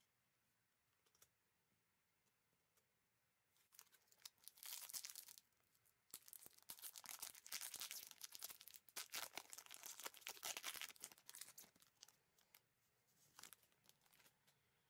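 A trading-card pack's wrapper being torn open and crinkled by gloved hands, in spells of crackling rustle that start about four seconds in and die away near the end.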